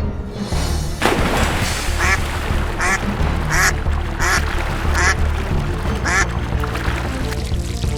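Cartoon duck quacking over and over, about one quack every three-quarters of a second, over background music.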